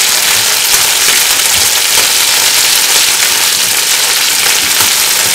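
Chicken pieces frying in oil in a nonstick pan on an electric stove: a steady, dense crackling sizzle.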